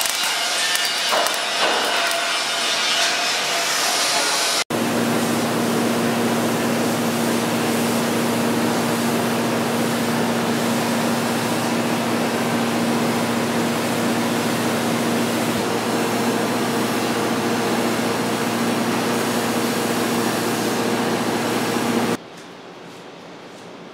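MIG welding torch crackling and spitting as it welds steel strips on a lamp frame, for about five seconds. After a sudden cut comes a steady hiss with a low hum from the finishing booth, which drops away sharply near the end.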